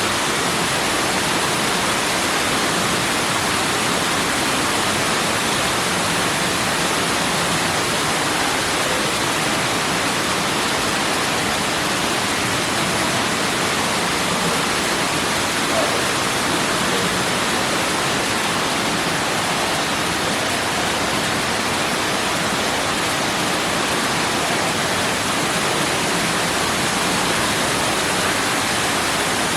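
Man-made indoor waterfall pouring steadily into a pool: a constant, even rush of falling water.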